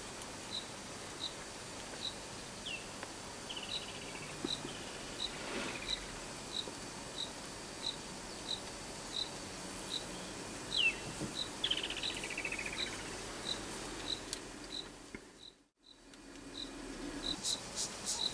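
Insects chirping steadily in the bush, one short high chirp about every two-thirds of a second, with a few short falling bird calls in between. The sound drops out briefly near the end, then a faster ticking insect call starts.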